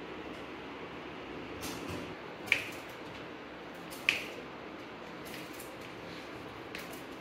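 A utensil knocks twice against the tray of soft lauki barfi as pieces are lifted out: two sharp clicks about a second and a half apart, over a faint steady hiss.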